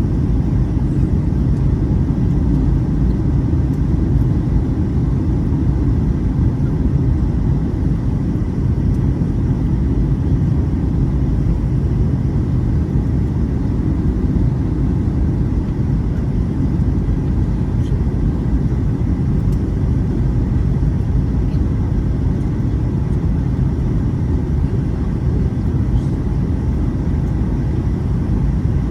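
Steady low roar of a jet airliner's cabin in flight: engine and airflow noise heard from a passenger seat during the descent.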